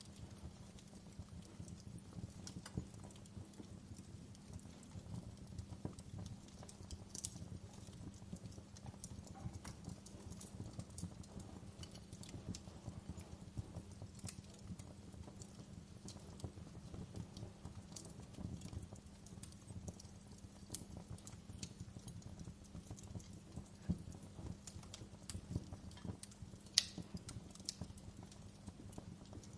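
Wood fire crackling in a fireplace: a soft steady low rumble under a constant scatter of small clicks. A few louder pops stand out, the sharpest about three seconds before the end.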